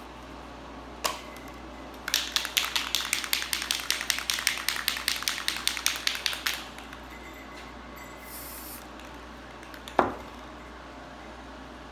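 Aerosol spray-paint can being shaken hard, its mixing ball rattling rapidly for about four seconds. A short hiss of spray follows, then a single knock.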